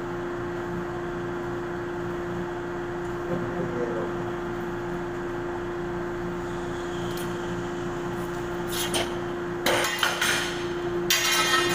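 Steady low hum, then a few clinks and clattering knocks about nine to eleven seconds in as a length of electrical conduit pipe is handled and set against the concrete floor.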